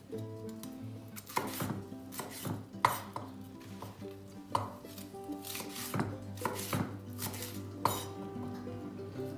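Chef's knife slicing green Çarliston peppers into thin strips on a wooden cutting board. The blade knocks against the board in uneven strokes, about two a second, starting about a second in.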